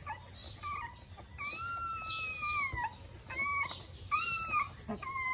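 Nursing puppies whining: a series of about five high, thin whines. The longest lasts about a second and a half and slides down in pitch at its end.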